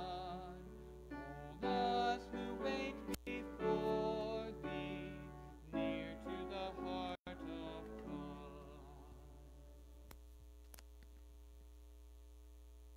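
The closing lines of a hymn sung with keyboard accompaniment, ending about eight seconds in on a held chord that fades slowly. A steady electrical hum lies underneath.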